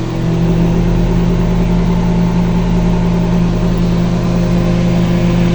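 Panasonic microwave oven running on a 30-second heating cycle: a steady transformer and magnetron hum with fan noise. It runs cleanly with no arcing or popping, now that the burnt mica waveguide cover has been removed.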